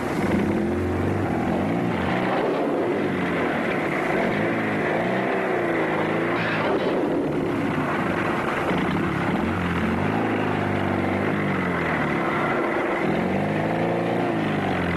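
Motor vehicle engine running steadily, its pitch swelling up and falling back several times, over a constant rushing noise.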